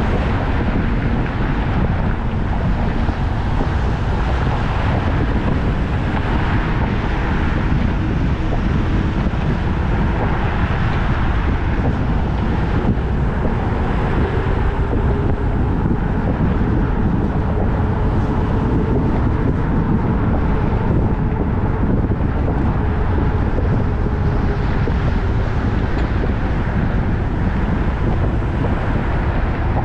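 Steady road and wind noise of a car in motion, with a faint engine hum that drifts slowly in pitch.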